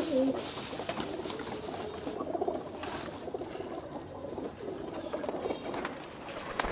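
Flock of domestic pigeons cooing steadily, with scattered light taps and an occasional wing flap.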